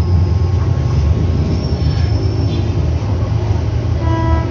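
Steady low rumble, with a short pitched beep about four seconds in.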